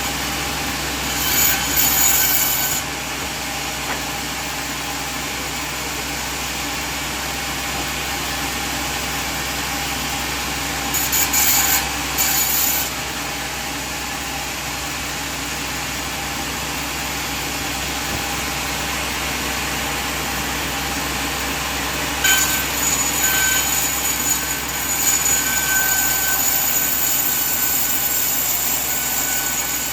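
Sawmill band saw running steadily, with three louder stretches of the blade cutting through coconut wood: briefly near the start, again around the middle, and continuously through the last quarter.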